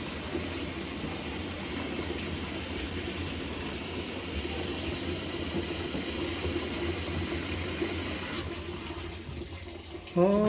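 Water running into a washing machine as it fills through its inlet hose, a steady rushing that eases off near the end.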